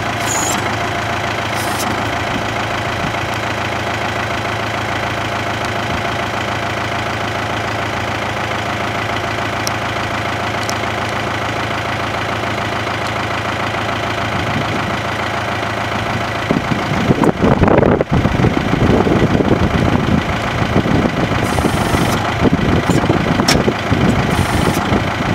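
Case IH Farmall 95 tractor's diesel engine idling steadily. About two-thirds of the way through, a louder, uneven rumble sets in over it.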